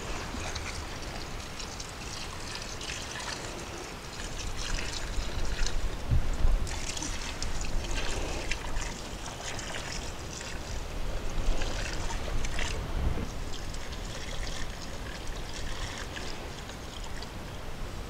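Water pouring in a thin stream from a plastic jerry can's spout and splashing into dry concrete mix packed in a wooden form.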